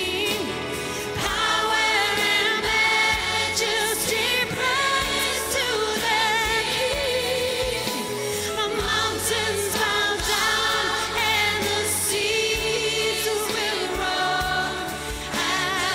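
Contemporary worship song performed live: a lead voice singing with vibrato over a band and choir, with held bass notes underneath.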